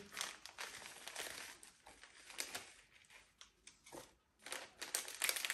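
Packaging being handled and opened, making irregular crinkles and rustles, with a short pause about four seconds in.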